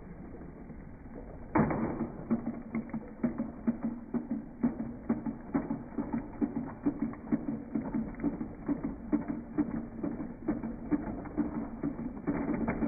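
Motorized Thomas & Friends toy engines running on plastic track: a steady motor whir with rapid, regular clicking of gears and wheels, starting suddenly about a second and a half in.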